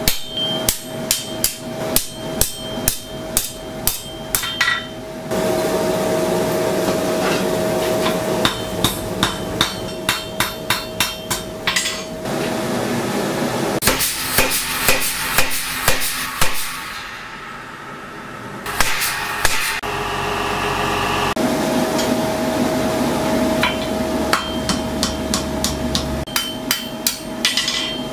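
Blacksmith forging a hot steel bar: bursts of rapid, evenly spaced hammer blows on the steel, about four a second, from a power hammer and hammer work on an anvil. A steady hum with a held tone fills the gaps between the bursts.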